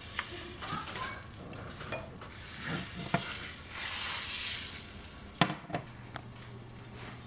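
Injera batter of teff flour hissing and sizzling as it is poured into a hot skillet, with small clicks. About five and a half seconds in, a glass lid is set on the pan with a sharp clink, followed by a few lighter taps.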